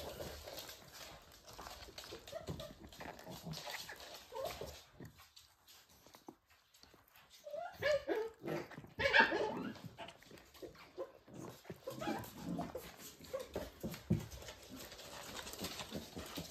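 Welsh Corgi Pembroke puppies, about six weeks old, playing and giving short high whines and yips, loudest in a burst about eight to nine seconds in, among small clicks from paws and toys on the floor.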